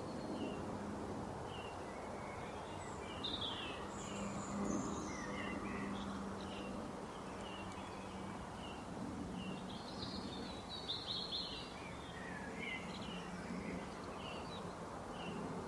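Small birds chirping and tweeting in many short, scattered high notes over a steady background hiss and a faint low hum.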